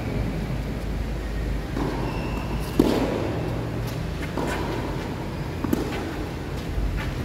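Tennis ball struck by rackets twice, about three seconds apart, the first hit the louder. A steady low rumble of traffic noise runs underneath.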